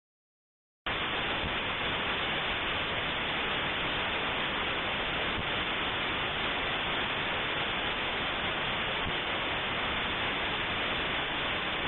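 Dead silence, then about a second in a steady, even hiss like static cuts in abruptly and holds unchanged: the noise floor of a low-quality dashcam recording.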